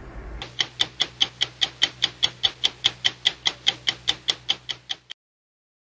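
A rapid, even ticking of sharp clicks, about five a second, over a faint low hum; the clicks fade a little and stop abruptly.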